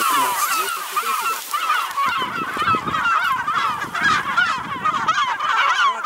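A nesting colony of Caspian terns and gulls calling at once: a loud, unbroken chorus of many short, harsh, overlapping calls, typical of colony birds alarmed by people walking among their nests. A low rumble runs underneath from about two seconds in.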